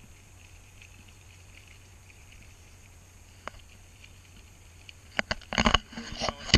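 Bicycle and camera rattling as the bike rolls over a gravel road: a faint steady hiss with a single click, then from about five seconds in a run of loud, irregular knocks and rattles.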